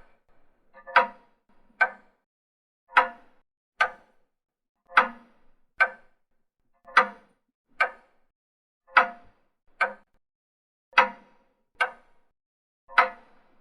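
An old pendulum clock ticking steadily in an uneven tick-tock: a fuller tick, then a sharper, shorter tock less than a second later, with one pair every two seconds.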